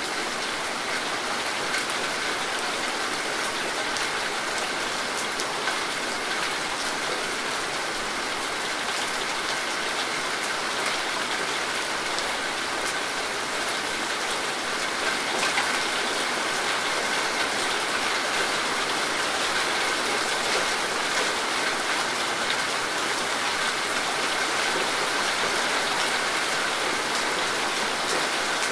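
Steady rain falling on leafy foliage, an even rushing hiss with scattered ticks of close drops striking leaves; it grows slightly louder about halfway through.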